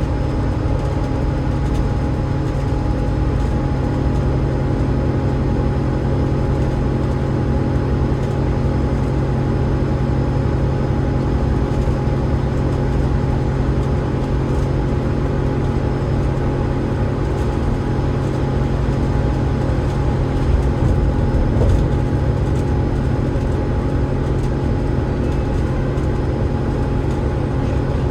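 Alexander Dennis Enviro500 MMC double-decker bus, with a Cummins ISL8.9 diesel engine and a ZF EcoLife six-speed automatic gearbox, running steadily at constant speed. A steady low drone carries a few steady tones, including a faint steady whine, with no gear changes.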